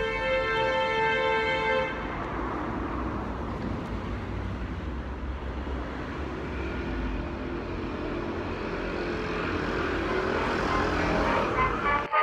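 Street traffic: a vehicle horn sounds steadily for about two seconds at the start, then the continuous rumble of passing traffic, swelling slightly toward the end.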